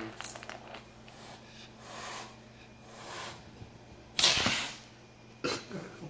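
A cat hissing: softer hisses about two and three seconds in, then a sudden loud hiss about four seconds in and a shorter one near the end.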